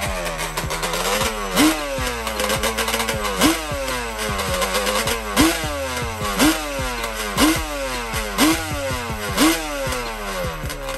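Engine of a homemade drag kart, revved in short blips about once a second, the pitch jumping up sharply and settling back toward idle between blips.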